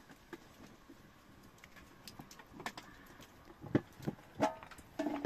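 Scattered light crackling of a wood fire, then a few louder knocks and clanks in the last second and a half as a blackened metal cooking pot and its lid are handled.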